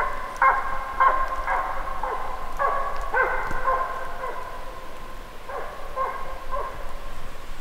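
Drever hound giving tongue on a drive: a run of barks, roughly two a second, pausing briefly midway. This is the drive bark of a dog following a roe deer's fresh trail.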